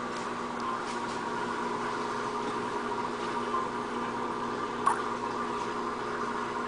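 Aquarium filter running: a steady hum with water bubbling and trickling. A single sharp click a little before five seconds in.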